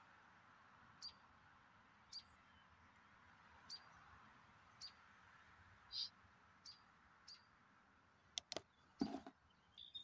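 Short, high bird chirps, single notes about once a second, over faint hiss. Near the end, two sharp clicks and a brief rustle.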